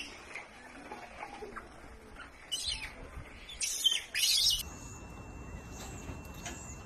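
Short, high-pitched chirping calls from a small animal, several in quick succession. The loudest come about three to four seconds in. Later a faint steady high tone runs under a few softer chirps.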